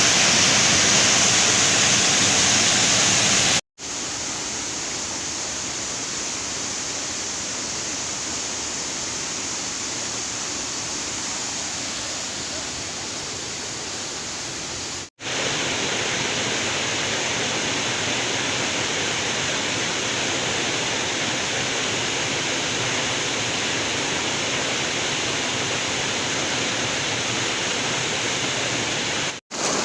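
Waterfall: a steady rush of falling water, cut off twice by brief drops to silence. The first stretch is louder than the rest.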